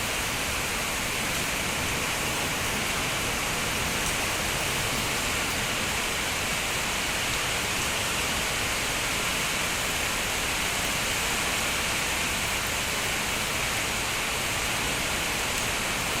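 Steady rainfall, a dense even hiss without single drops standing out.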